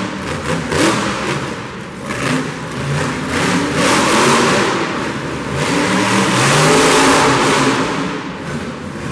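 Monster truck engine revving up and down as the truck drives and turns, loudest in two long swells through the middle.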